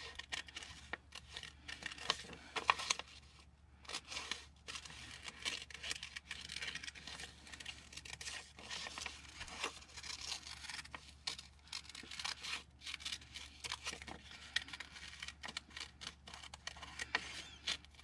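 Small scissors fussy-cutting through a thin book page, with many short, irregular snips and the paper rustling as it is turned.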